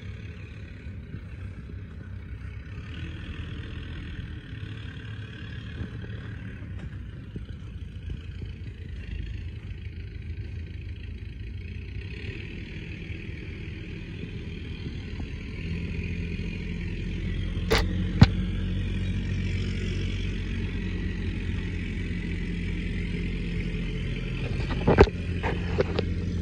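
New Holland T1510 compact tractor's diesel engine idling steadily, growing louder about two-thirds of the way in. A few sharp knocks come partway through and again near the end.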